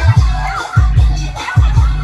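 Loud dance music with a heavy, pounding bass beat and a wavering melody line on top.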